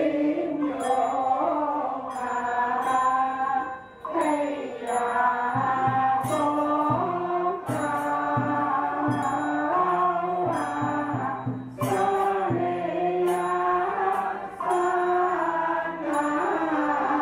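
A group of men and women chanting a Buddhist chant in unison, in held, stepping notes with brief pauses between phrases, kept in time by a wooden fish knocked in a steady beat.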